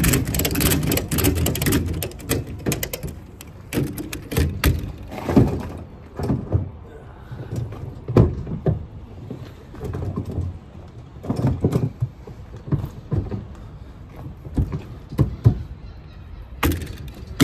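A ratchet strap being worked and tightened, its metal ratchet clicking and clunking in repeated bursts.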